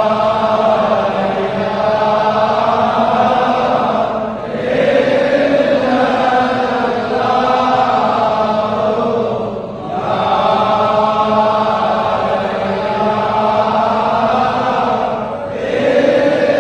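Sufi zikr chanted by a large body of voices in unison, in long drawn-out phrases that break briefly about every five and a half seconds.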